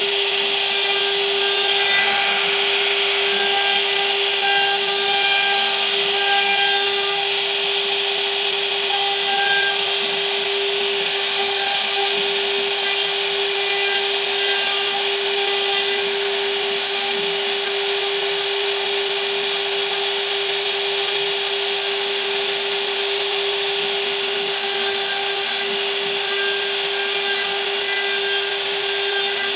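CNC router spindle running with a steady whine while its bit routs curved grooves into a wood panel, over a constant hiss of cutting.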